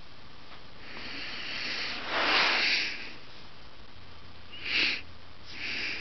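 A person's breaths close to the microphone: one long swelling breath, then two short ones, the first of them sharp like a sniff.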